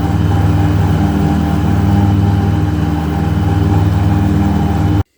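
Kubota GR2120 ride-on mower's three-cylinder diesel engine running steadily; the sound cuts off suddenly near the end.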